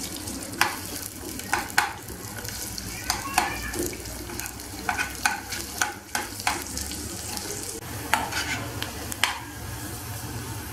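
Sliced onions frying in oil in a nonstick saucepan, sizzling steadily as they brown, while a spoon stirs them with repeated sharp scrapes and clicks against the pan.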